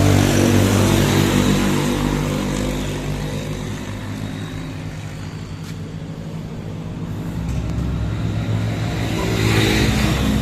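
A motor vehicle engine running steadily, fading through the middle and growing louder again near the end.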